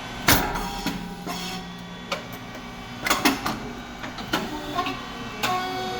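SYP9002 rice cake popping machine running a production cycle: a series of sharp bangs and clanks as the heated moulds press and release, the loudest about a third of a second in, over a steady machine hum.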